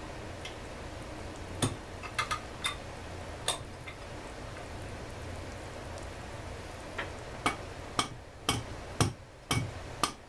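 Scattered clicks and knocks of an Echo CS-400EVL chainsaw's plastic housing and metal parts being handled on a workbench during teardown, coming closer together in the second half, with a few duller thuds near the end.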